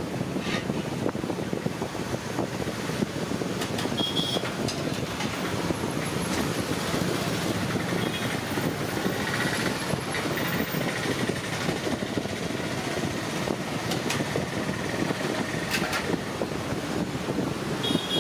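Roadside street noise with traffic, mixed with hot oil sizzling in a large wok (kadai) as masala vada fritters deep-fry; a few sharp metal clicks.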